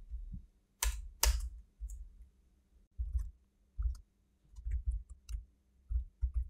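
Computer keyboard typing: two sharp clicks about a second in, then scattered, softer keystrokes with short pauses between them.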